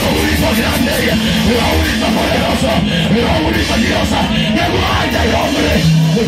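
Loud live worship music played over a PA: instruments with a held low note, and a man's voice singing and calling out through the microphone over them.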